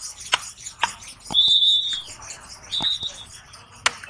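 Heavy cleaver chopping through a rawas (Indian salmon) on a wooden chopping stump: a few sharp knocks, the loudest near the end. In between comes a high-pitched squeal, held about half a second, twice.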